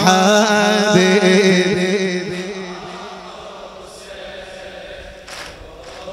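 A radood's solo male voice chanting a Husseini latmiya lament holds the word "habibi" on a long, wavering note that fades out about two seconds in. A quieter stretch of crowd noise follows, with a few faint knocks.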